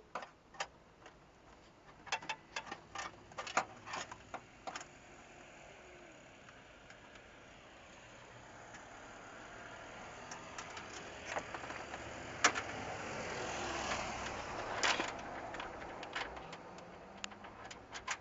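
Scattered small clicks and knocks of metal parts and tools being handled. A rush of noise builds over several seconds and fades again, like a vehicle passing by.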